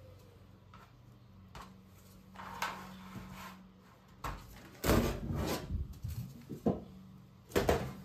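Handling noise: a run of knocks, scrapes and clatters as objects are moved and set down, loudest in a cluster about five seconds in, over a low steady hum.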